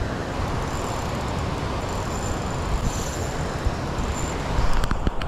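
Steady rushing noise of water flowing below a spillway, heavy in the low end, with a few sharp clicks near the end.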